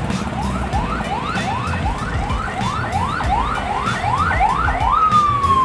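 An electronic siren or alarm: a run of rising whoops, a little over two a second, turning near the end into one long falling wail.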